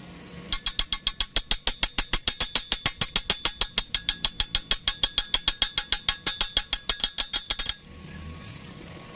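Rapid, evenly spaced metal-on-metal strikes, about eight a second, each with a bright ring; the strikes start about half a second in and stop suddenly near the end.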